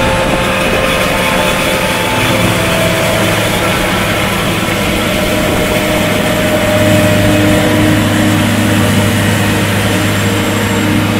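John Deere 7250 self-propelled forage harvester running steadily while chopping standing corn and blowing the silage into a towed wagon: a constant low engine hum with the noise of the chopping and blowing over it.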